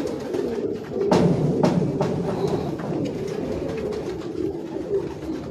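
A flock of domestic pigeons cooing continuously, with two sharp clicks about a second in.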